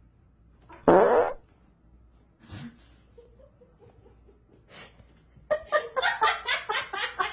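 A person breaks wind with one short, loud, rasping fart about a second in. A loud run of quick pulsed sounds follows near the end.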